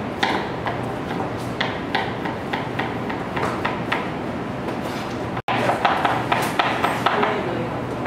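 Knife chopping raw potato on a plastic cutting board: a quick, uneven run of knocks. About five seconds in, the sound cuts off abruptly and picks up again with more chopping knocks and kitchen clatter.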